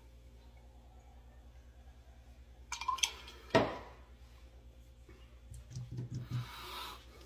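Near silence while a shot of whiskey is drunk. About three and a half seconds in there is a sharp knock of the heavy cut-glass tumbler being set down on a hard surface, with a few small clicks just before it. Near the end come a low voiced grunt and a breathy exhale after the shot.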